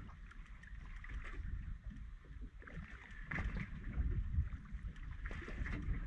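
Water slapping against a small boat's hull with wind buffeting the microphone, an uneven low rumble.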